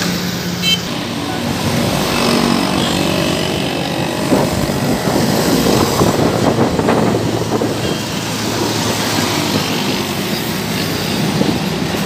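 Road traffic crossing a bridge: a steady din of engines and tyres that swells as vehicles pass, loudest between about four and seven seconds in.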